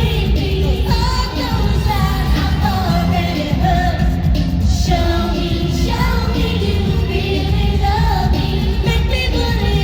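Freestyle dance-pop music with a singing voice over continuous backing.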